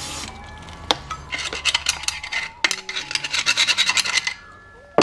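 A spray can's hiss cuts off right at the start. Then comes a dense run of short scratching and scraping strokes of a metal tool inside an open differential housing, from about a second in until shortly before the end.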